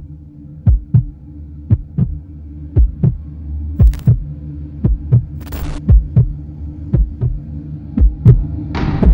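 Heartbeat sound effect: slow double thumps about once a second over a steady low drone. A brief hiss comes about five and a half seconds in, and a noise swell rises near the end.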